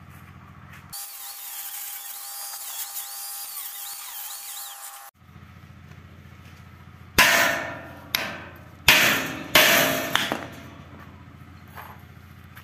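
Four sharp hammer blows on steel, each ringing briefly as it dies away, knocking a rusted caster wheel off a steel pig-crib frame, followed by a couple of lighter taps. A few seconds of steady hiss come before the blows.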